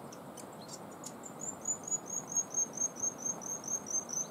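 A fast, regular run of short high chirps, about five a second, starting about a second in, over a steady high insect-like hiss and a constant low rushing background.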